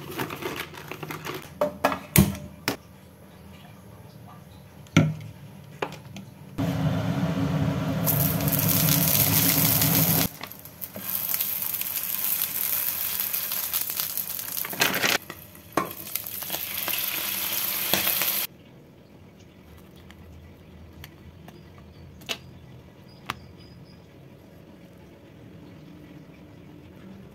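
Bao buns sizzling in hot oil in a non-stick frying pan: a loud steady hiss starting about seven seconds in and lasting about twelve seconds, with a brief dip about ten seconds in. Before it, plastic packet crinkling and a few sharp clicks; after it, only faint handling clicks.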